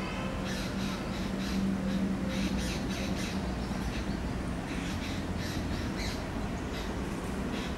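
Birds calling with short, harsh calls repeated through the clip, over a steady low hum that is strongest in the first few seconds.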